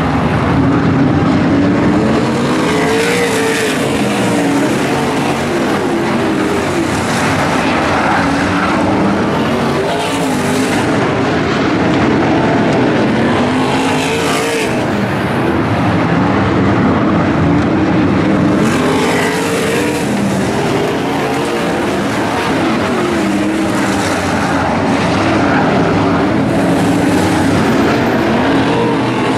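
Several non-wing sprint cars' V8 engines running on a dirt oval: a loud, continuous mix of engines whose note rises and falls every few seconds as the cars pass and go through the turns.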